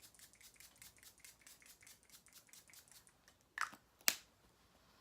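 A facial mist pump bottle spraying: two short spritzes about half a second apart, the second the louder. Before them comes a faint quick ticking, about five ticks a second, for roughly three seconds.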